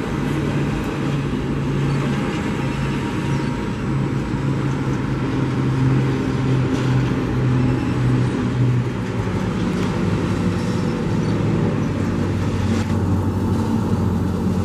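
Propeller drone of two twin-turboprop military transport aircraft flying over in formation: a steady low hum whose pitch drops about two-thirds of the way through as they pass.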